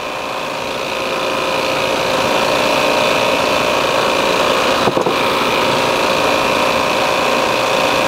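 Appion G5 Twin refrigerant recovery machine running steadily, its compressor drawing R-410A out of the air conditioner into the recovery tank late in the recovery, with system pressure down to about 40 PSI. A brief click about five seconds in.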